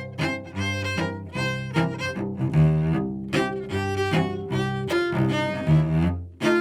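Instrumental music: a steady run of short pitched notes over held low notes, in the sound of low bowed strings.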